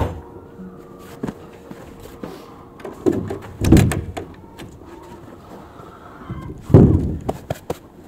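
The sliding end door of a polytunnel being pushed along and shut, with heavy thuds about three seconds in and a louder bang near seven seconds as it closes, followed by a few quick clicks and knocks.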